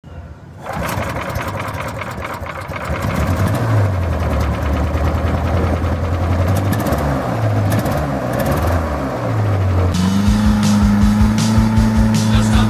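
Small single-cylinder petrol engine driving a hovercraft's ducted fan: its pitch rises and falls as the throttle is worked, then it holds a steady higher note from about ten seconds in.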